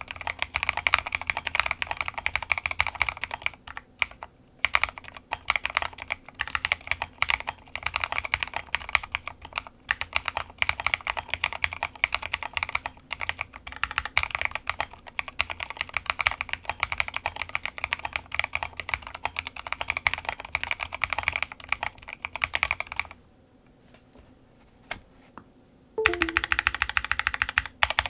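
Continuous fast typing on a custom 40% mechanical keyboard: clear acrylic Prime_E case and acrylic plate, lubed NK Cream linear switches and KAT Alpha keycaps, keystrokes clacking in quick succession. Near the end the typing stops for about three seconds, then starts again.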